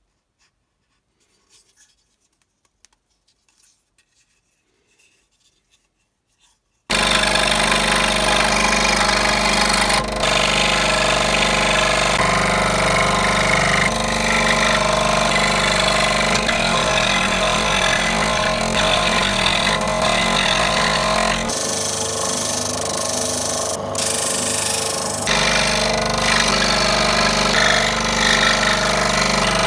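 A few faint clicks in near silence, then about seven seconds in a loud, steady power-tool sound starts abruptly and runs on, changing in tone a few times.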